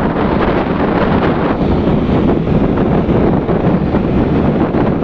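Steady wind noise buffeting the microphone of a moving vehicle, a loud, even rushing rumble with road noise mixed in.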